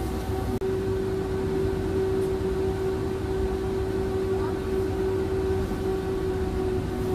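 Electric tram running along its tracks, heard from inside the car: a steady low rumble with a steady humming tone over it.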